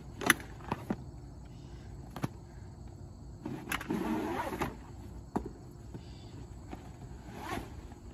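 Flat fire supply hose being pulled off its roll and flopped onto asphalt: a few sharp knocks and clicks, and scuffing swishes of the hose jacket sliding over the pavement, the longest a little past the middle and another near the end.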